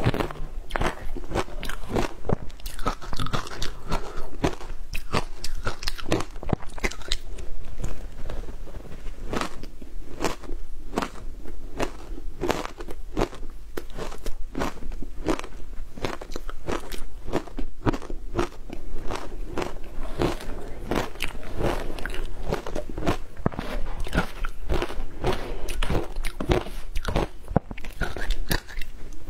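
Close-up crunching of matcha-dusted ice being bitten and chewed, a fast, unbroken run of crisp crunches.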